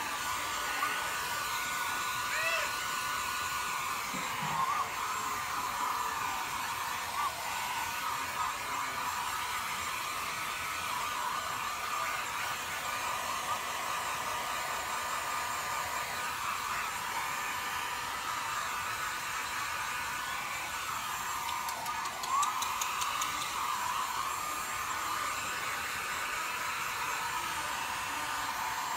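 Handheld electric hair dryer running steadily while blowing on a wet cat's fur. It is switched off right at the end.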